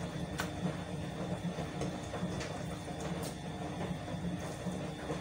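Steady low hum with a few faint, sharp clicks.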